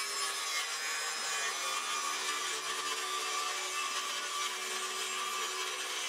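Cordless circular saw running steadily as it cuts along a sheet of plywood in one continuous pass.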